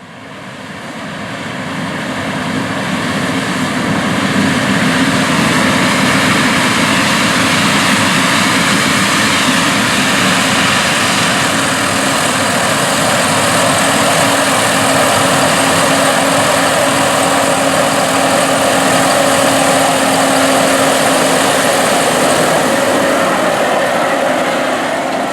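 Big diesel farm machinery running steadily in the field, a dense mechanical drone with a steady hum through it. It fades in over the first few seconds and fades out near the end.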